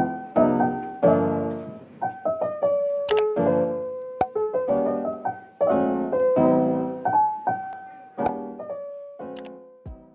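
Piano music: a light melody of single notes and chords, each struck and fading away, with a few short sharp clicks over it.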